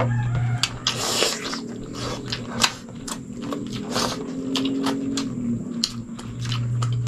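Close-miked eating sounds: wet chewing, lip smacks and finger-licking clicks as two people eat chicken sinigang and rice by hand. A low hum is held for a couple of seconds around the middle.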